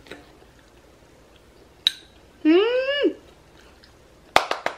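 Close-up eating sounds: a single clink of a utensil on a dish, then a short hummed "mm" that rises and falls, then rapid clicking mouth sounds of chewing near the end.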